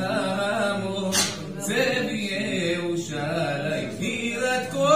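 A man singing unaccompanied, a slow chant-like melody with long held notes.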